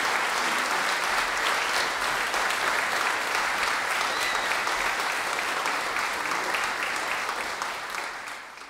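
Audience applauding steadily in a hall, many hands clapping at once, tapering off near the end.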